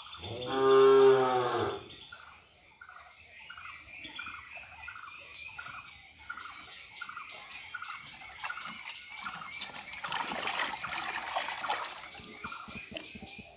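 A cow moos once, a loud call lasting over a second, starting about half a second in. After it come quieter sounds of a cow feeding from a bucket, with a louder splashing, slurping stretch about ten seconds in.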